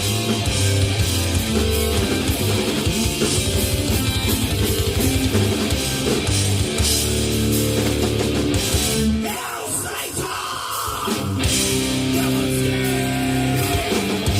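Metal band playing live: distorted electric guitars, bass and drums. A little past the middle the bass and drums drop out for about two seconds, leaving thinner higher sound, then the full band comes back in.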